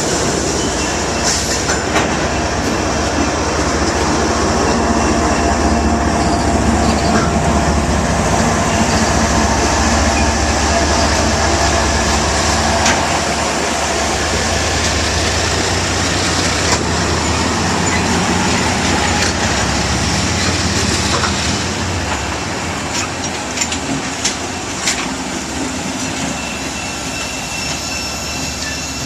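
Iowa Interstate Railroad freight train rolling past: a steady rumble of steel wheels on the rails, with scattered clicks and faint wheel squeal. The deep rumble eases off about three-quarters of the way through.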